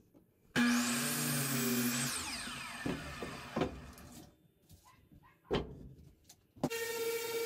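A Ryobi miter saw starts suddenly, cuts through a pine 2x4, and after the trigger is released its blade winds down with a falling whine. A few sharp knocks of wood follow. Near the end a handheld electric sander starts up and runs steadily.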